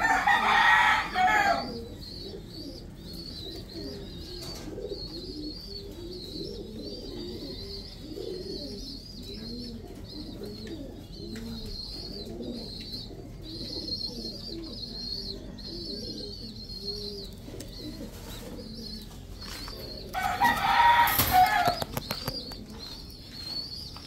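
Pigeons cooing in a low, wavering murmur, while a rooster crows loudly twice, once at the very start and again about twenty seconds in.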